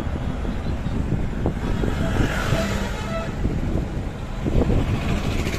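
Car driving, heard from inside the cabin: a steady low engine and road rumble, with a rush of noise swelling up in the middle and fading again.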